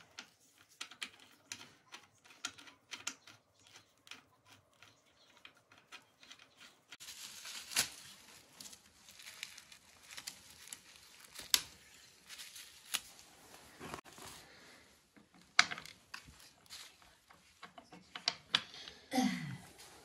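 Bicycle pedal being fitted to the crank arm by hand: a run of light clicks and ticks from the pedal spindle and crank, broken by a few sharper knocks.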